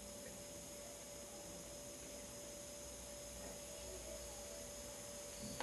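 Steady low electrical hum with a thin, faint steady tone and no room sound, the self-noise of the recording equipment over a blank gap in the recording.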